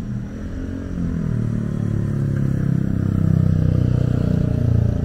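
A motor vehicle's engine running close by, growing louder from about a second in.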